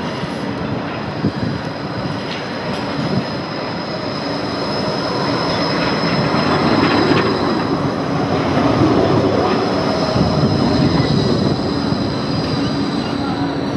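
Bombardier Flexity 2 electric light rail tram passing close by on street track, its running noise swelling as it draws alongside about halfway through. A thin, high steady tone sounds over the rumble throughout.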